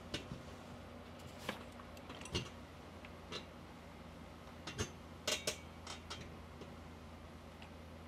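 Scattered light clicks and knocks from handling a clothes iron and garments on an ironing board, about a dozen, irregularly spaced, over a steady low hum.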